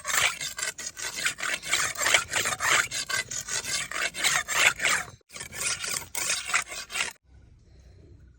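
Steel blade of a Maasai olalem short sword drawn back and forth over smooth sandstone, rapid rasping sharpening strokes. They break off briefly about five seconds in, resume, and stop about seven seconds in.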